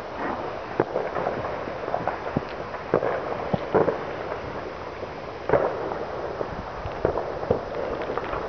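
Distant fireworks going off all across a town: many scattered bangs and pops at irregular intervals over a steady crackle of more far-off rockets and firecrackers, with louder reports about four and five and a half seconds in.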